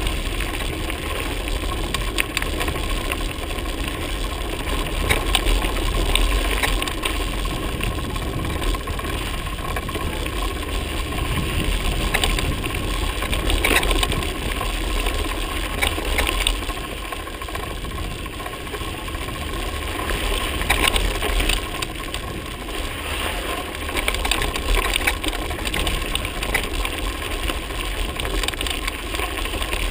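Mountain bike riding over a loose gravel track: a steady rush of tyres on gravel with frequent clicks and rattles from the bike over the bumps, and a low wind rumble on the microphone.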